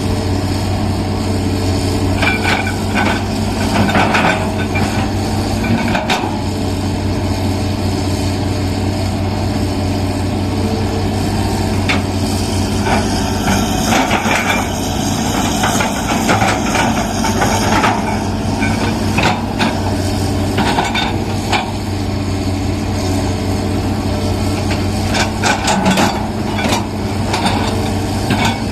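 Hydraulic excavator's diesel engine running steadily at working revs while it digs, with clusters of sharp metallic clanks and knocks from the working machine.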